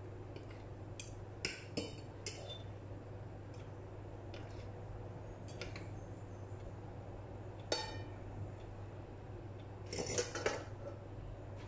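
Two metal forks clinking and scraping against a ceramic plate as they pull mozzarella apart: scattered clinks, one ringing out about eight seconds in, and a quick cluster near the end.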